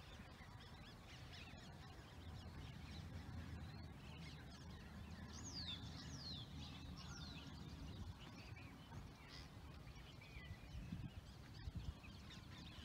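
Faint wind rumble on the microphone, with a few short, high bird calls falling in pitch about five to seven seconds in.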